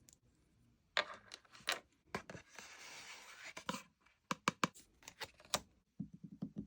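Mystery-box packaging being handled: a stretch of rustling, tearing wrapping in the middle, with scattered light clicks and taps around it and a quick run of soft taps near the end.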